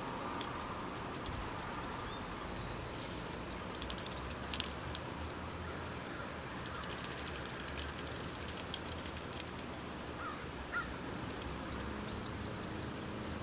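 Steady outdoor background noise with a few faint clicks, and a short bird call about ten seconds in.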